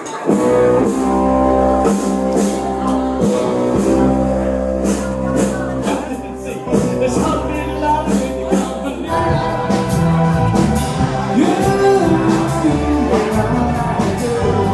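A band playing music with singing and a steady beat; the music changes character about nine seconds in.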